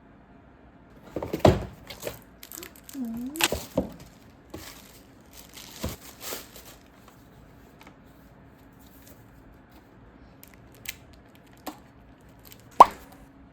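Packaging being handled and opened: crinkling and tearing with light knocks, busy for the first several seconds, then a few scattered taps and one sharp knock near the end.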